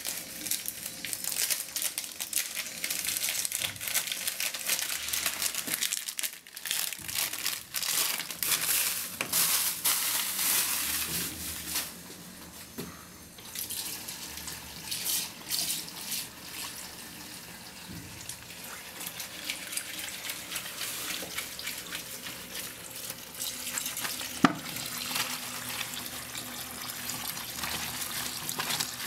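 Laundry being hand-washed in a sink: wet, soapy cloth scrubbed and rubbed together with scratchy, sloshing sounds, with water running from a tap. One sharp knock about 24 seconds in.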